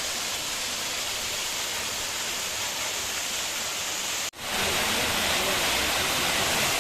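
Waterfall rushing as a steady hiss of falling water. About four seconds in it cuts off for an instant and comes back louder and brighter.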